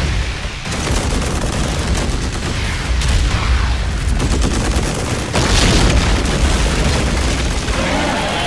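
Film battle sound effects: rapid automatic gunfire over a heavy, continuous low rumble of explosions, with a louder blast a little past the middle.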